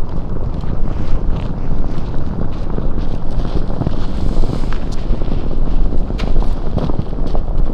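Strong wind buffeting the microphone, a loud, steady low rumble with scattered short crackles.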